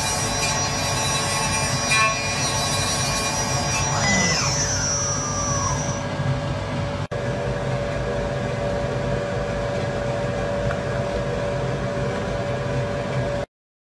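Small wood lathe running with a steady mechanical drone as a turning tool cuts a spinning wooden bead. A brief falling whine comes about four seconds in, and the sound cuts out just before the end.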